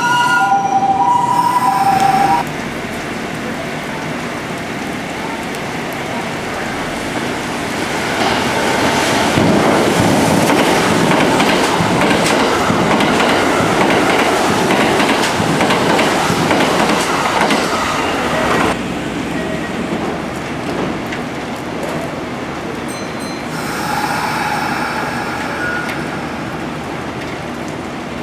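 Kintetsu electric train running past on the platform track: wheel and rail noise that grows about eight seconds in, stays loud for about ten seconds, then drops away suddenly. A steady signal of several tones sounds in the first two seconds, and a fainter tone comes a few seconds before the end.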